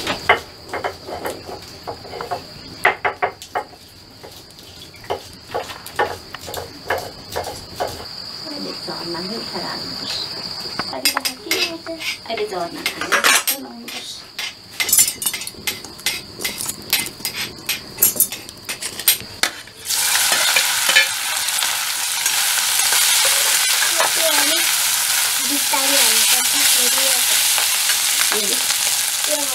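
Sharp clicks and knocks of kitchen utensils, with a steady high insect trill for the first ten seconds. About twenty seconds in, a loud sizzle starts suddenly: food frying in a wok over a wood fire, stirred with a metal skimmer.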